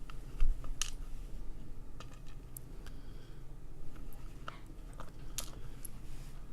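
Scattered light clicks and taps of small metal padlock parts, pins and a tool, being handled while the lock is taken apart, with a small knock about half a second in.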